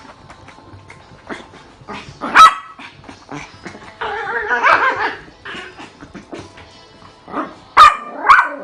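Toy poodles barking in excitement at their owner's homecoming: a sharp bark about two seconds in, a denser stretch of yips about four seconds in, and two more sharp barks near the end.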